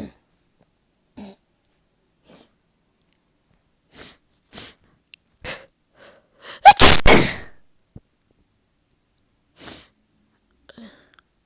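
A person sneezes once, loud and sudden, about seven seconds in, after a few short, quiet breaths; one more short breath follows a few seconds later.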